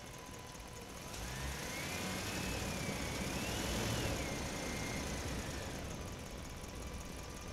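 A motor vehicle's engine running past nearby. It swells over the first few seconds, its pitch gliding up and down, then fades out about six seconds in.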